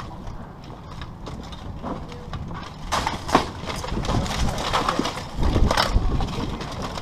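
Plate armour clanking and weapons striking as two armoured fighters close and grapple: sharp metallic knocks about three and three and a half seconds in and again near six seconds, with heavy footfalls and body thuds as they clinch.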